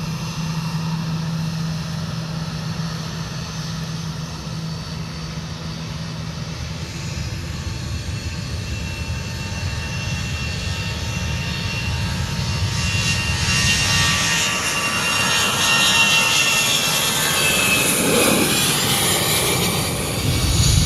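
Airbus A320 jet engines, first running at a steady low hum, then spooling up to takeoff power as the airliner starts its takeoff roll about seven seconds in. The sound grows steadily louder and higher with engine whine, and the pitch falls as the jet passes near the end.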